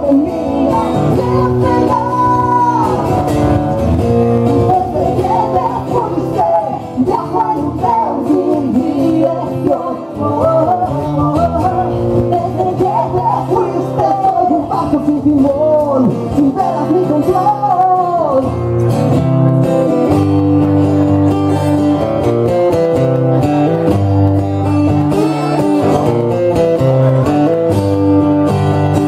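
Acoustic guitar strummed under a sung melody. The singing stops about eighteen seconds in, leaving the guitar playing on alone.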